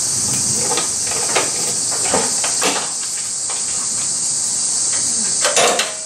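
Steady high-pitched drone of summer insects, with scattered light clicks and knocks and a louder clatter near the end.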